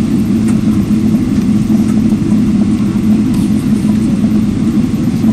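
Steady loud rumble inside an airliner cabin as the plane rolls along the runway: jet engine noise mixed with the rumble of the wheels.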